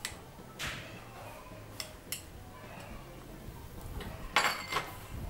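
Light clicks of a spoon and small glass bowl as melted ghee is spooned onto semolina and sugar in a glass bowl, a few separate taps, then a louder short rustling scrape near the end.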